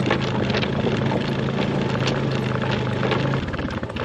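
Off-road vehicle engine running at a steady pitch under frequent clicks and rattles; the engine note drops away about three and a half seconds in.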